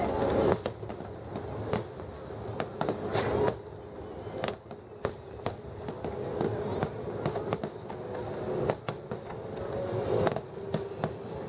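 Aerial fireworks shells bursting in an irregular, rapid series of sharp bangs, about two a second, over a continuous rumble from the display.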